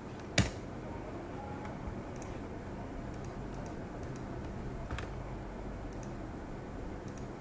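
A few sharp computer mouse clicks, the loudest about half a second in and another near five seconds, with fainter ticks between, over a steady low electrical hum and hiss.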